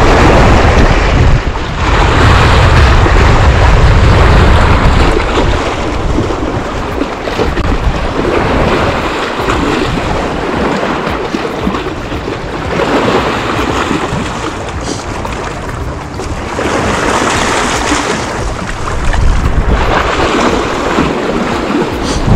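Wind buffeting the microphone: a loud, gusty rumble that is heaviest in the first few seconds, then swells and eases in hissing gusts.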